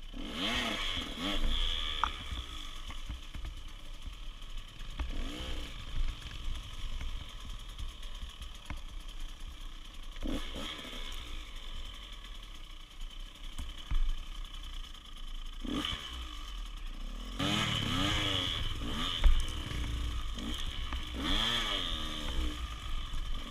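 Dirt bike engine revving up and down in repeated bursts while riding a rough bush trail, with the pitch climbing and falling each time the throttle is opened and closed. The revs are loudest and most sustained for a few seconds near the end.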